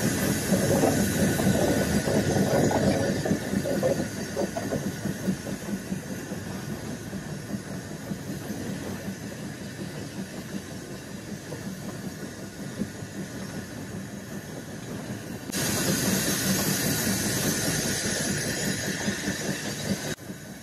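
Steam train with the R12 steam rotary snow blower rolling past, a steady hiss of steam over the rumble of the train. The sound is loudest in the first few seconds, then turns suddenly louder and brighter again about fifteen seconds in before dropping near the end.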